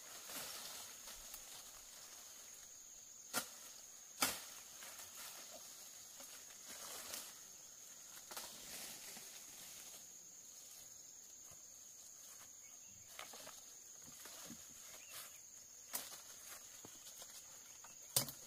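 Footsteps and rustling through cassava plants, with four sharp snaps among the woody stalks, over a steady high-pitched drone of insects.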